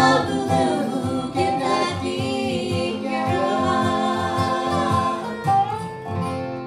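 Bluegrass band of fiddle, acoustic guitar, mandolin and resonator guitar, with several voices singing in harmony over a steady strummed rhythm. The voices hold long notes on the closing line, and the music fades out near the end.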